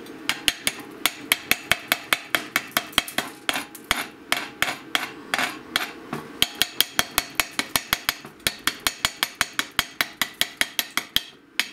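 Spring-handled chipping hammer striking slag off a 7018 stick-weld bead on steel: rapid, regular metal-on-metal taps, about four a second, with a brief pause about six seconds in.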